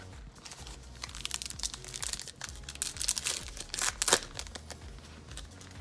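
A 2020 Topps Gypsy Queen card pack's wrapper being torn open and crinkled: a dense run of crackling strokes, busiest from about one to four seconds in.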